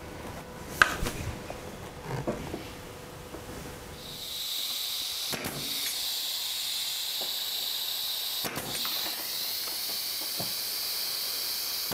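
Pneumatic brad nailer shooting brads into wood: two sharp shots about three seconds apart, with a few fainter ticks, over a steady hiss of compressed air from the nailer's air line that starts about four seconds in. Before that, light knocks of wood pieces being handled.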